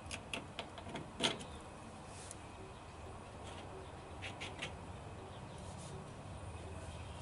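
Light metal clicks and clinks of small spacer shims being fitted over a truck's leaf spring shackle pin, a quick run of them in the first second and a half and a few more near the middle.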